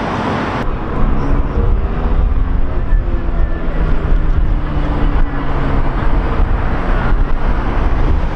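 An engine running under a heavy low rumble of wind on the microphone, starting abruptly under a second in.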